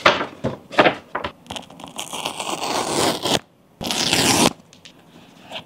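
Close-miked rustling of a paper shopping bag and an iPhone 16 Pro box being handled, with scraping and scratching. About four seconds in comes a short, sharp tearing rasp as the box's pull-tab seal strip is torn off.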